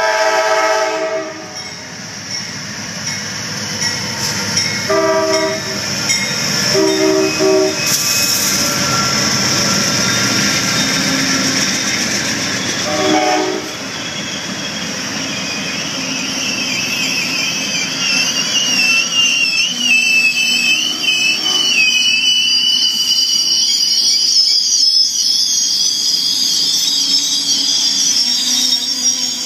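Amtrak passenger train passing: the locomotive's horn sounds four blasts in the first fourteen seconds, the first the longest. Then the passenger cars roll by with a steady rumble and a high, wavering wheel squeal.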